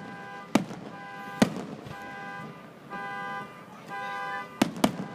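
Consumer firework bangs: four sharp reports, one about half a second in, one at about a second and a half, and two close together near the end. Under them a car alarm sounds a repeating on-off tone.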